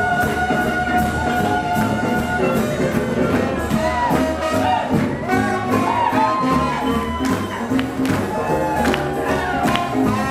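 Jazz music with no singing: a long held note for the first two seconds or so, then a moving melody over a bass line. A steady beat of about two a second runs underneath.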